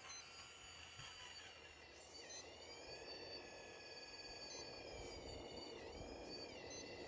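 Faint, high-pitched whine of a radio-controlled model excavator's electric drive as its arm and bucket move. The pitch dips and recovers about two seconds in and again near the end, as load comes on the drive.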